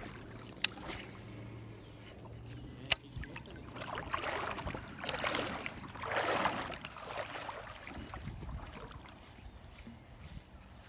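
Creek water trickling and sloshing, swelling twice in the middle, with two sharp clicks in the first three seconds.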